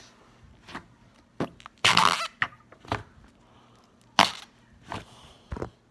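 Slime being squished and pressed by hand, giving a series of sharp pops and crackles, the loudest about two seconds in and again just after four seconds.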